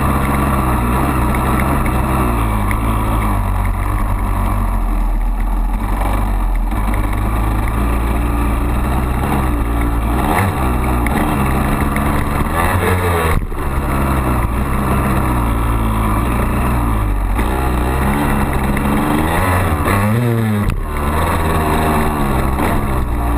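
Honda CR250 single-cylinder two-stroke dirt-bike engine running under way, heard from on the bike. The revs climb several times, and two of the climbs break off in a brief, sudden dip, one about halfway through and one near the end.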